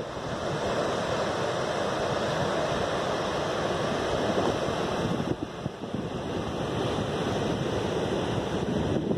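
Steady rush of surf breaking on a sand beach, mixed with wind blowing across the microphone; both ease off briefly a little past halfway.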